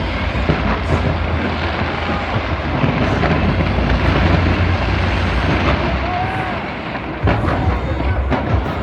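A fireworks barrage: a dense, continuous rumble of bursts with a heavy low boom and a few sharper bangs.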